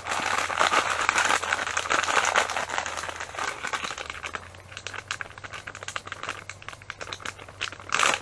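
Plastic fishing-bait packets crinkling as hands handle and shake them. It is busiest in the first three seconds, eases off, then comes again in a short burst near the end.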